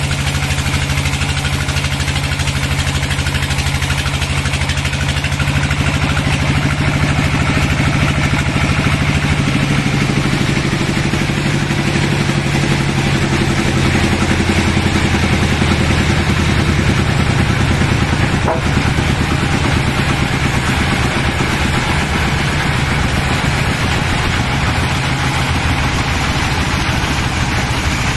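A large band sawmill running, its band blade sawing lengthwise through a long log on the carriage: a steady machine hum under the hiss of the cut, shifting slightly in pitch a few times, with one short click past the middle.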